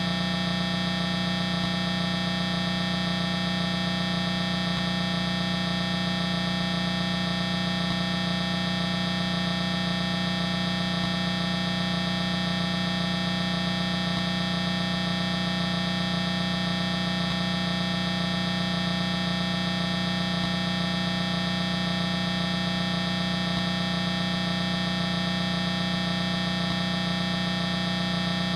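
A 'G Major' style sound-effect edit: one sound layered and warped with pitch-shift and distortion effects into a single steady electronic drone. It is a loud low hum with many higher tones stacked over it, and it holds without any change.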